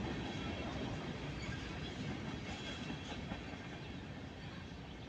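Freight train cars rolling past with a steady rumble, slowly fading as the train moves away.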